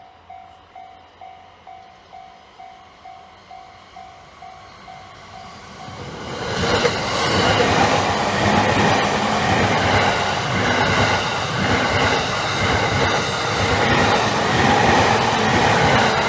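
Japanese level-crossing warning bell ringing, about two and a half dings a second; about six seconds in, a JR Takasaki Line electric train reaches the crossing and runs through it loudly, its wheel and rail noise covering the bell.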